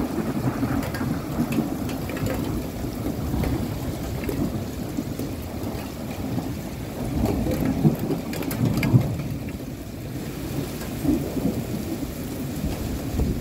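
Heavy rain pouring with a long rolling rumble of thunder, which swells louder about eight to nine seconds in.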